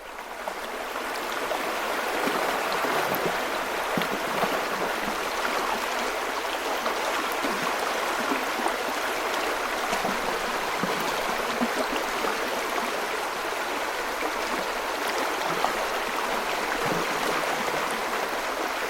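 Steady rushing of running water, like a stream, fading in over the first second or so.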